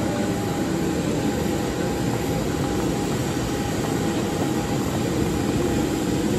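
Steady jet aircraft noise on an airport apron: an even rushing hum with a faint high steady tone over it.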